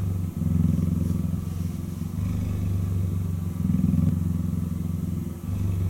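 Adult cheetah purring close by: a low, pulsing rumble that switches between the in-breath and out-breath phase about every one and a half to two seconds.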